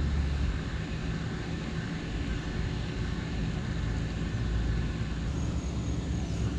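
Steady low drone of a distant engine under an even hiss of outdoor background noise.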